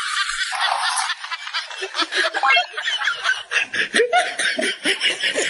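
A person snickering with laughter in quick breathy pulses, several a second, starting about two seconds in after a breathy hiss.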